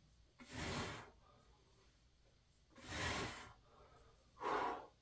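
A person coughing three times with pauses between, the coughs breathy and airy, the last one more voiced and hoarse.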